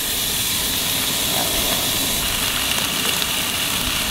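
Bacon strips sizzling in a hot cast-iron skillet as more raw strips are laid in. It is a steady hiss with a few faint crackles.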